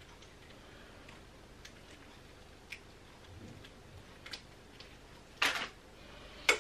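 A new sewing machine needle being taken out of its small plastic case: scattered light clicks and taps, then a short louder rustle about five and a half seconds in and a sharp click just before the end.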